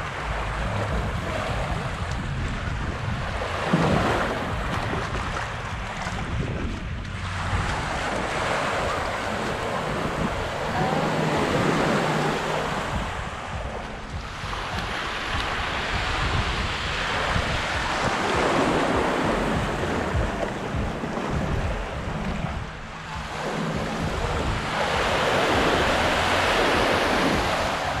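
Waves washing onto the beach in repeated hissing surges every few seconds, with wind rumbling on the microphone underneath.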